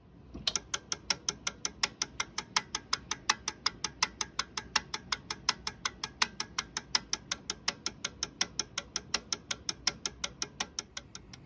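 Relays in a rebuilt EU2AV automatic antenna tuner clicking in quick succession, about five clicks a second, as the tuner switches its inductors and capacitors while tuning; the clicking stops near the end.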